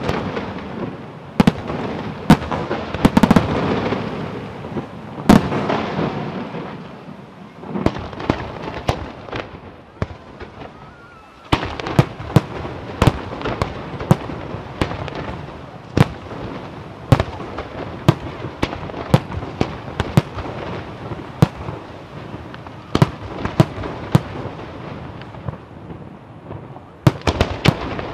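Fireworks display: aerial shells bursting one after another, sharp bangs over a continuous rumble and crackle. There is a brief lull about ten seconds in, then bangs come roughly once a second, with a quick cluster near the end.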